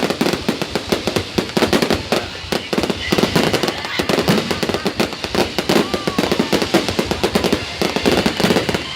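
Fireworks crackling in a dense, unbroken stream of rapid pops, with crowd voices underneath.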